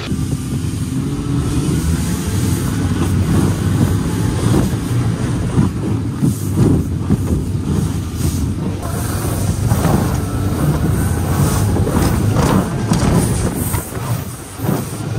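Snowmobile running along a snowy trail, a steady engine and track rumble with many knocks and rattles from the bumpy ride.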